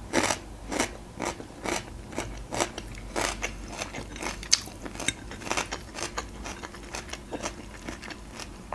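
A person chewing a mouthful of food with the mouth closed, close to the microphone: irregular wet mouth clicks, several a second, throughout.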